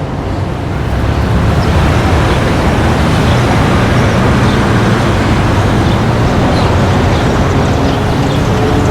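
Street ambience: a steady rumble of road traffic, fading in over about the first second.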